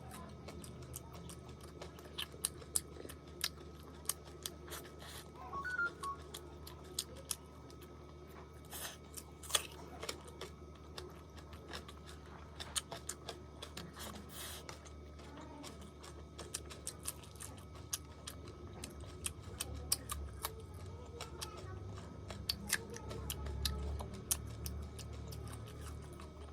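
Close-up eating sounds: irregular short clicks and smacks of chewing, over quiet background music.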